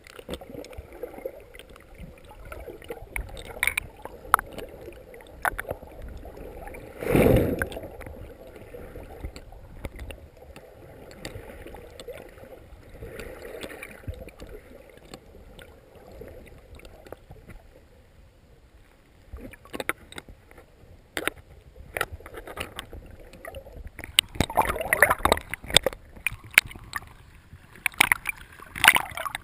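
Handling sounds aboard a small rowboat: scattered knocks and clatter against the boat over a low steady background of water, with one loud noise about seven seconds in and a busier run of clatter near the end.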